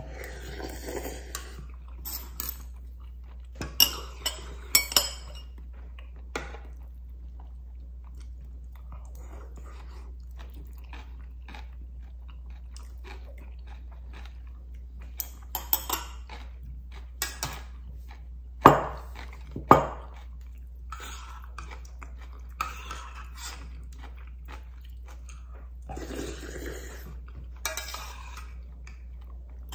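Eating ramyun from a stainless steel pot: noodles slurped in several short bursts, with chewing in between. Spoon and chopsticks clink against the metal pot, including two sharp knocks about a second apart midway through, the loudest sounds.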